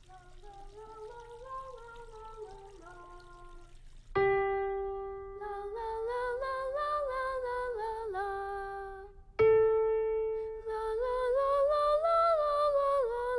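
Soft background music at first; then a single piano note is struck and held, and a boy's voice sings a slow melody over it without words. A second piano note is struck about nine seconds in and the boy sings a second phrase.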